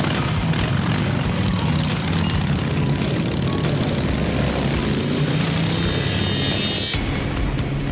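Several chopper motorcycle engines running and revving as the bikes pull away and ride past. The higher noise drops away abruptly near the end, leaving a lower engine rumble.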